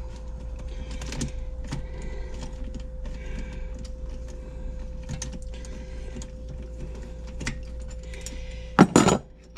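Scattered light clicks and clinks of hand tools and metal engine parts being worked during an engine teardown, over a steady hum. A loud metallic clatter comes near the end.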